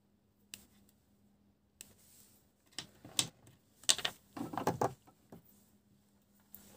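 Hands handling thin hookup wires on a wooden bench: scattered light clicks and rustles, busiest about three to five seconds in.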